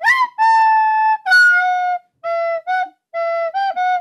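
Music: a solo flute-like woodwind melody of separate held notes, with short breaks between them.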